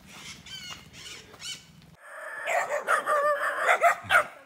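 Birds chirping in short calls, then about halfway through a run of loud, wavering yelps and whines from dogs.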